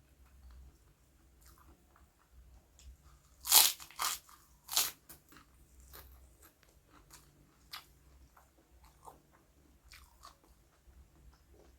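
A person eating close to the microphone: quiet chewing, with three loud crunchy bites in quick succession about three and a half to five seconds in.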